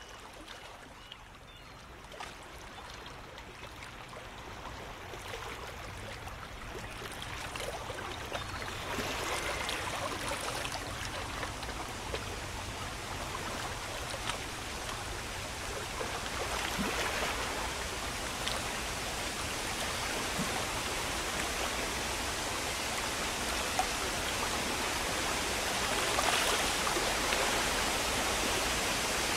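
Steady rush and splash of falling water from a pool's water-wall cascades. It fades in faint, swells over the first ten seconds and then holds, with a slight rise near the end.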